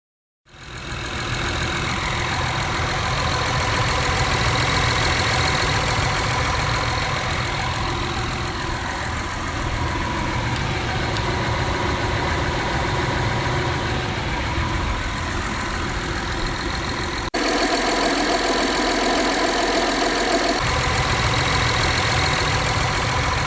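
Honda V6 engine idling steadily, a continuous running sound with a strong low-pitched rumble under it. About 17 seconds in the sound changes abruptly, the low end dropping away for about three seconds before coming back.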